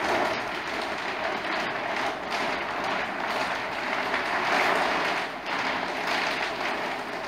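Screacher sailcloth rustling steadily as the sail is rolled up on a Code Zero furler.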